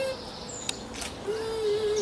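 A low, steady hooting call rises out of the background about a second in and holds for over a second, over a bed of quick, high, falling bird chirps.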